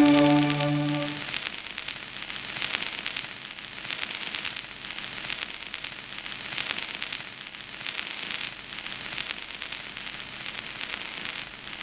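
A sustained musical chord fades out in the first second. It leaves a steady crackling hiss full of fine pops, like the surface noise of an old record.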